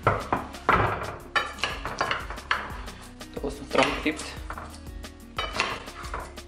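A glass baking dish set down on a wooden table with a knock, then a kitchen knife cutting through crisp baked baklava and clinking against the glass dish, over background music.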